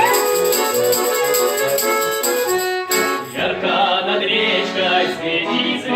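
Music: an instrumental folk ensemble with accordion and violin playing held notes. About three seconds in it breaks off and a group of voices begins singing.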